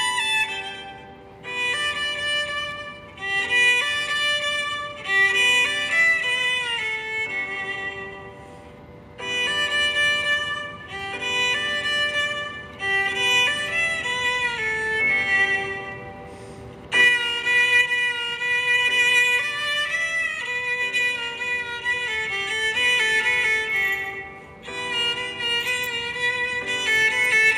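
Instrumental music: a melody played in phrases, with short pauses between them.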